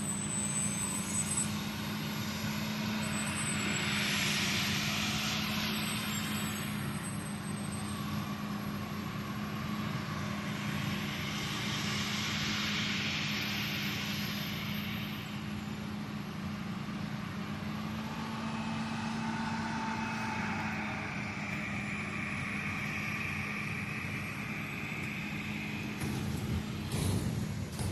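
Heavy harvest machinery running steadily with a continuous engine drone. Swells of rushing noise come about four and twelve seconds in, and a few sharp knocks near the end.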